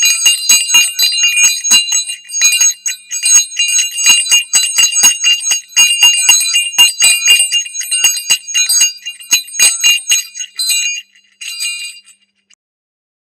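Bells rung rapidly: many sharp strikes, several a second, each with a clear high ringing tone, stopping about eleven seconds in.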